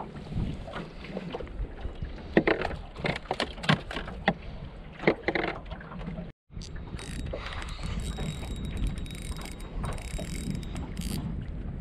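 Sharp knocks and thuds in an aluminium tinny as a freshly landed mulloway is brought aboard and handled on the deck, several of them loud. After a sudden break about six seconds in, a steady rush of wind and water.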